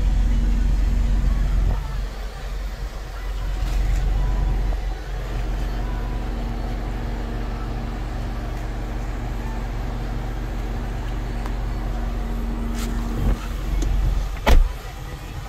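Smart ForTwo's small three-cylinder engine idling steadily, heard from inside the cabin, with the car in park. Near the end come a couple of sharp knocks, the last the loudest.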